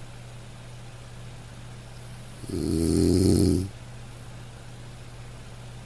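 Snoring: a single drawn-out snore starts about two and a half seconds in and lasts a little over a second.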